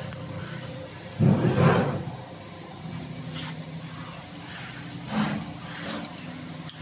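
Cabinet-hinge assembly machine running with a steady low hum. A loud mechanical clatter comes about a second in, and a smaller one comes about five seconds in.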